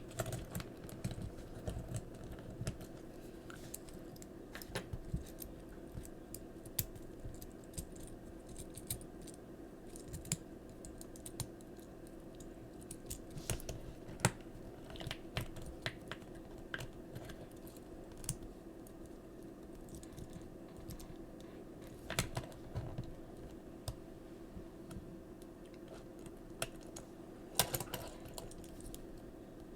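Small plastic Transformers toy parts clicking and knocking irregularly as they are handled and folded by hand during transformation, over a steady low hum.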